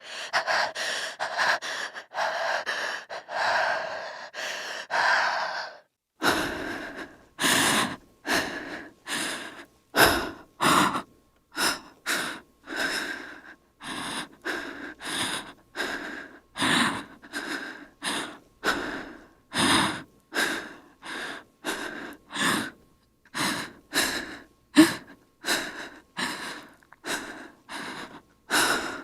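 A frightened woman breathing: quick, shallow panting for the first six seconds or so, then heavier, uneven breaths about two a second with sharp gasps, the strongest about ten seconds in and near the end.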